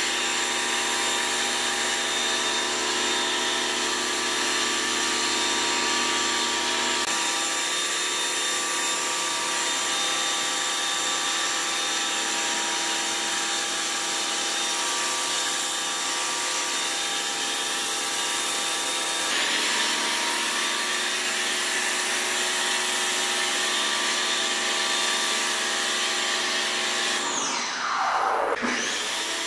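A pressure washer running, with its steady motor whine and the hiss of a foam cannon spraying snow foam. Near the end the whine dips sharply in pitch and comes back up.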